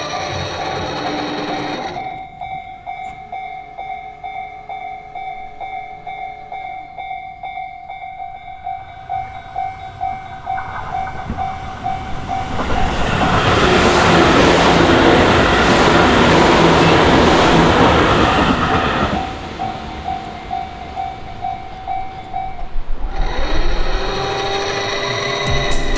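Japanese railway level crossing's warning bell ringing in a fast, steady repeat, while an electric train of the Tobu Noda Line passes through the crossing for about six seconds in the middle, a loud rush of wheels on rails. Music plays briefly at the start and comes back near the end.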